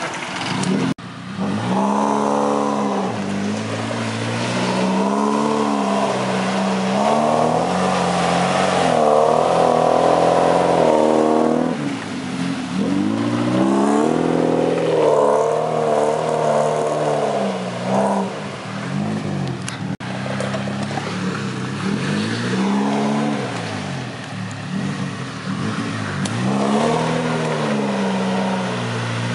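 UAZ off-road vehicle's engine revving, its pitch rising and falling again and again.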